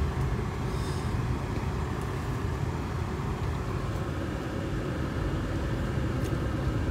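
Steady low rumble of a car driving on a rough village road, heard from inside the cabin, with a tractor running just ahead.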